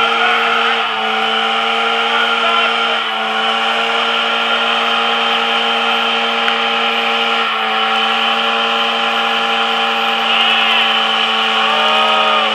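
Detroit Diesel 6V92 two-stroke V6 diesel in a cab-over semi tractor, held at high, steady revs during a burnout while the drive tyres spin. The pitch sags briefly about a second in, about three seconds in and about seven and a half seconds in, then holds again.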